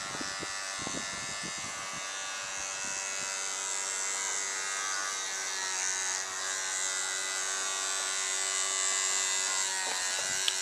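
Battery-powered oscillating electric toothbrush buzzing steadily as its head swings a plastic paddle in the water, with a sharp click near the end.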